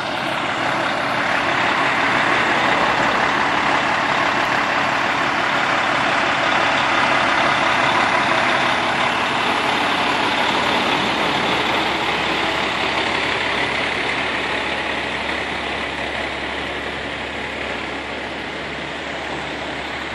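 Diesel engine of a 2014 Pierce Velocity 105-foot ladder truck running steadily, growing gradually quieter over the last several seconds.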